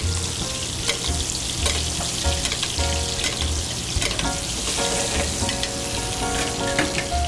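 Halibut fillet sizzling in hot butter and olive oil in a stainless steel pan while it is basted, with a few sharp clicks from the pan.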